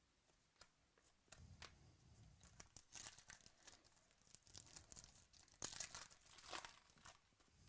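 Foil trading-card pack wrapper being torn open and crinkled by hand, a faint run of quick crackles that comes in bursts, busiest about three seconds in and again near the end.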